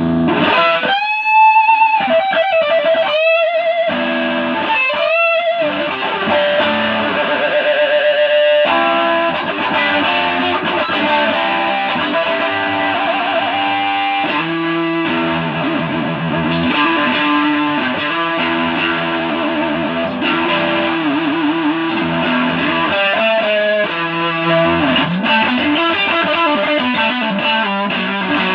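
Pink Stratocaster electric guitar played through effects with light distortion: long bent notes with vibrato in the first few seconds, then quicker melodic lines.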